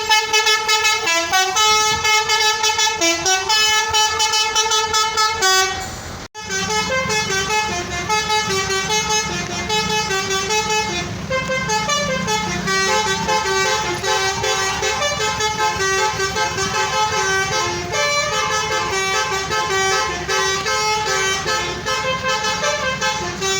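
Basuri multi-tone bus horn ('telolet') playing a tune, note after note. About six seconds in the sound cuts off sharply, and another horn tune plays on over the low running of a bus engine.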